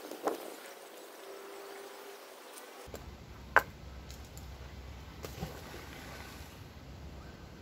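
Outdoor creek-side ambience with a low rumble setting in about three seconds in. A sharp click about three and a half seconds in is the loudest sound, and a smaller splash comes a couple of seconds later as a thrown fishing magnet lands in the creek.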